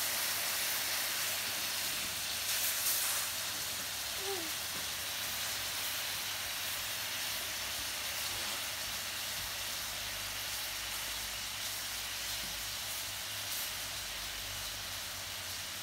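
Marinated beef steak sizzling in soy-sauce marinade, with no oil, in a stainless steel pan: a steady hiss, with a few crackles about three seconds in.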